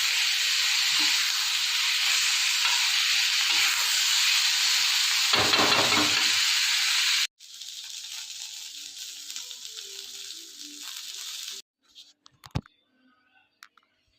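Corn frying in a hot pan, with a loud, steady sizzle. About seven seconds in it cuts off abruptly and a quieter sizzle follows, which stops near the end, leaving a few faint clicks.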